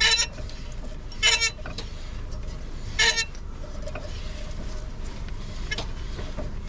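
UAZ Patriot wheel being rocked back and forth by hand, giving three short high-pitched squeaks about a second and a half apart. The squeak is suspected to come from a stone caught behind the brake dust shield.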